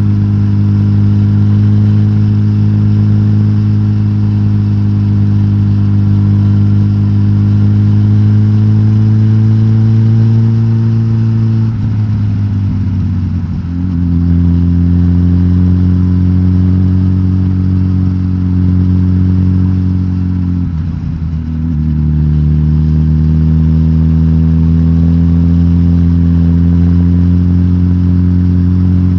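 Suzuki GSX-S1000GT's K5-derived inline-four engine running through a de-catted stock exhaust, its note holding steady and creeping slightly upward, then dropping to a lower pitch twice, about two-fifths and two-thirds of the way through.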